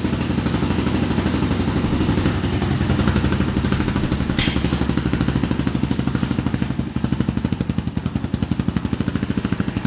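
2021 Apollo Z20 Max pit bike's 125cc single-cylinder four-stroke engine running steadily with a rapid, even exhaust beat, freshly started for the first time. A brief sharp click about four and a half seconds in.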